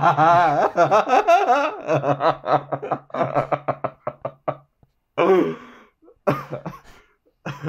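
A man laughing heartily: a long wavering laugh, then bursts of chuckles in quick pulses that trail off in short spells.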